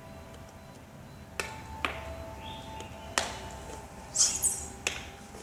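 Spoon clicking against the container a few times while stirring slime thinned with water, with a short burst of higher noise about four seconds in, over quiet background music.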